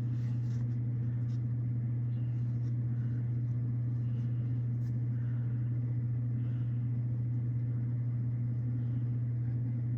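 Steady low electric hum from an appliance, with a few faint light clicks of handling.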